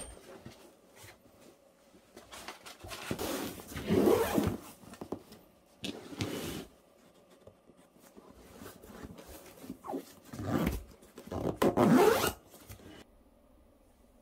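Zipper of a fabric IKEA STUK storage case being pulled shut in several strokes.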